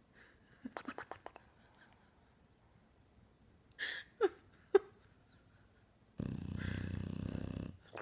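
English bulldog snoring in its sleep: a quick flutter of clicks about a second in, two short squeaky whistles falling in pitch around the middle, then one long snore lasting about a second and a half near the end.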